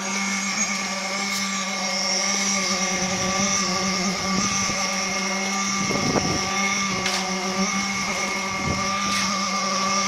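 Concrete mixer-pump running with a steady mechanical hum while it pumps concrete through the delivery hose, with a few low thuds, the loudest about six seconds in.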